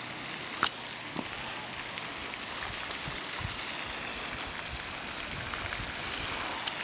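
Water splashing and lapping as a person swims through a cold pond, a steady rain-like wash, with one sharp click just over half a second in.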